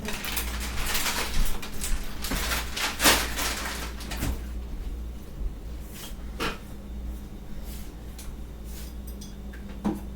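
Kitchen handling sounds: rustling for the first few seconds, then a few separate knocks of things being moved and put away.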